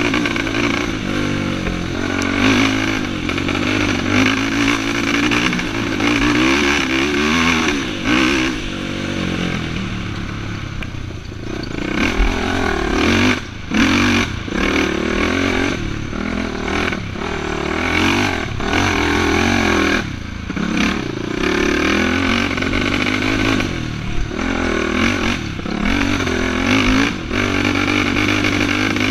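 Racing ATV engine revving up and down over and over as it is ridden hard, with rattling and clatter from the machine and a couple of sharp knocks about halfway through.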